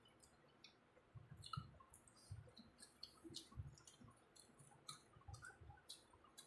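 Faint eating noises: scattered mouth clicks and smacks from chewing mouthfuls of rice, with soft low thuds.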